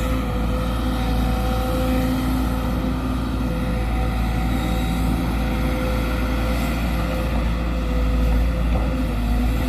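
Sumitomo SH210 hydraulic excavator's diesel engine running steadily at working revs, a constant even drone.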